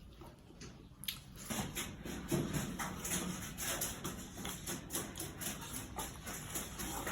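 Close-up mouth sounds of eating: irregular wet smacks, clicks and chewing, starting about a second and a half in, as adobo chicken feet are gnawed and sucked.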